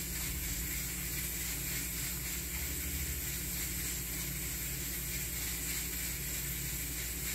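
Steady background hiss over a low hum, with no distinct sounds: room tone.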